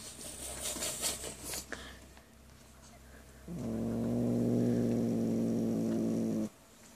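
Domestic cat crunching dry kibble, then, about halfway through, a steady low growl lasting about three seconds that stops abruptly: the growling this cat makes while eating.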